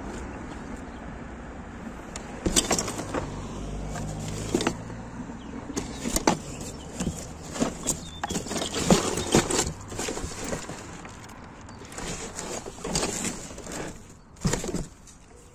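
Hands rummaging through a cardboard box of discarded items: rustling and scraping of cardboard with irregular knocks and clicks of the objects inside being moved. A steady low background noise sits under it, most plain in the first couple of seconds.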